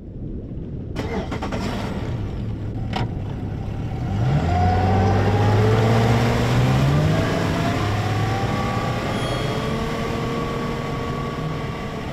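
An engine revving in a produced logo sound effect: a rush of noise from about a second in and a sharp click near three seconds, then from about four seconds an engine note that climbs in pitch and settles into a steady hum, slowly fading toward the end.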